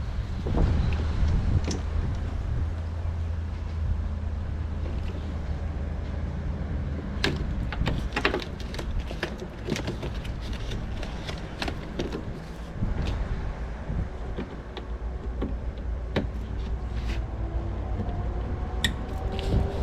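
Scattered sharp clicks and knocks of hands and tools working on a car's rear door during reassembly, over a steady low rumble.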